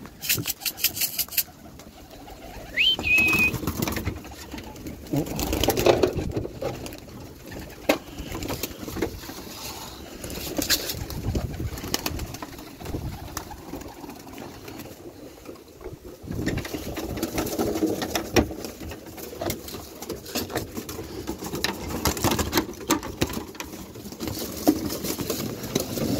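Domestic pigeons cooing and flapping their wings inside a wooden loft, with many sharp knocks and wing claps as the birds are put in.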